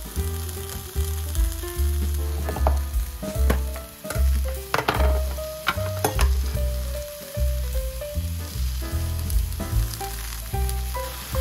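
Food sizzling as it fries in a pan, with the clicks of stirring utensils, over background music with a melody and bass line.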